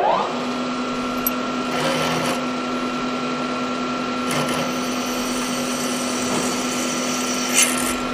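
Manual milling machine's spindle motor spinning up with a rising whine, then running steadily while a drill bit bores a hole in a metal plate. A short sharp sound near the end.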